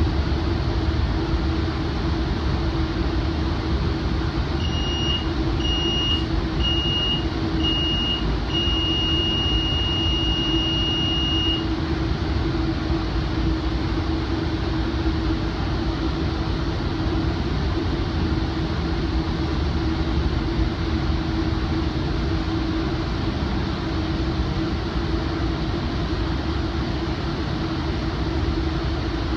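Steady rumble of the commuter train running at speed. About five seconds in, the Rotem cab car's alerter beeps four times, about once a second, then sounds a steady tone for about three seconds: the warning that asks the engineer to show they are alert.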